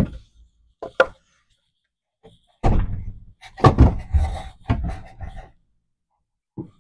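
Cut lumber truss webs knocking and clattering against each other and the wooden jig table as they are handled. There is a sharp knock at the start and two lighter ones about a second in, then a run of heavy wooden clunks lasting about three seconds, and a last knock near the end.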